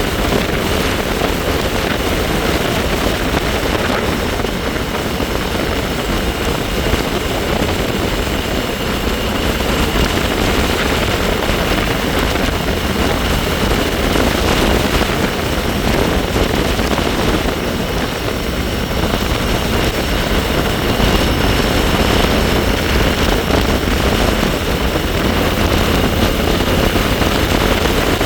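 Wind rushing over the microphone on a moving bike, with the bike's steady high-pitched whine running underneath.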